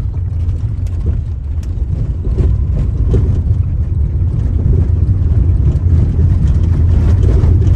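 Cabin road noise of an SUV driving on a rough unsurfaced dirt road: a steady, loud low rumble of tyres and engine, with a few faint ticks.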